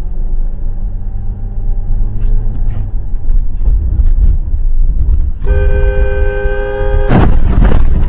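A car's engine and road noise rumbling steadily, heard from inside the cabin. A vehicle horn sounds one steady blast of about a second and a half, about five seconds in. Right after it comes a loud, harsh rush of noise lasting about a second, near the end.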